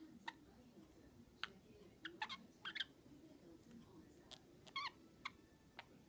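Pet budgerigars chirping softly: a scatter of short, sharp chirps and clicks every second or so, a few coming in quick runs.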